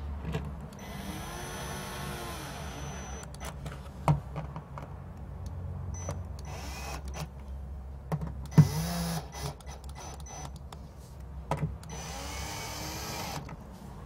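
Cordless drill-driver running screws in to fasten a switch panel: three runs of the motor, a long one about a second in, a short one a little past the middle and another near the end, each whine rising and then falling in pitch. Clicks and taps of handling come between the runs, with a sharp knock just before the short run.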